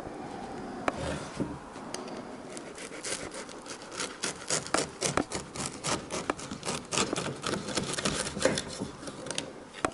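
Knife sawing through the crust of a freshly baked loaf on a wooden cutting board: quick back-and-forth strokes with the crackle of the crust, growing denser about three seconds in.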